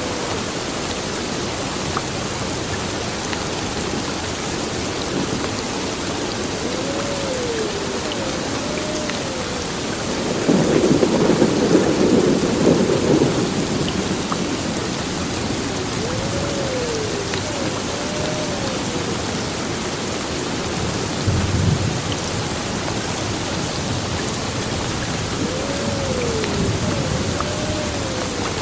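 Heavy rain pouring steadily on a building, with a rolling clap of thunder about ten seconds in and a shorter rumble a little past twenty seconds. A faint, arching two-part gliding call recurs three times.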